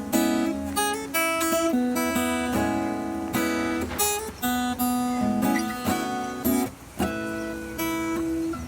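Acoustic guitar strummed in a steady rhythm, the instrumental intro of a song before the vocals come in.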